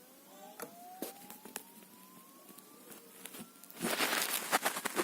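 A hard disk in a USB docking station spinning up: a steadily rising whine climbing over about four seconds, with a few light clicks, a sign the drive is getting power. Near the end, loud crackling handling noise.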